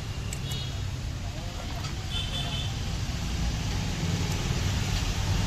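Steady low rumble of background road traffic, with a few light clicks and a brief high chirp about two seconds in.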